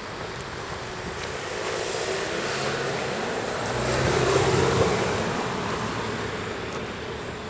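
A vehicle passing by: a rushing noise with a steady hum, swelling to its loudest about four and a half seconds in, then fading away.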